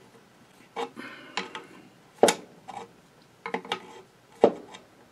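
Irregular metallic clicks and clinks of a wrench and screwdriver working a Singer 66 sewing machine's feed rock shaft pivot screw and its jam nut: the set screw is held with the screwdriver while the jam nut is tightened with the wrench. Several sharp taps come at uneven intervals, a few close together about three and a half seconds in.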